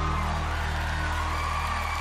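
Backing music holding a sustained low note while a studio audience starts to cheer and whoop over it.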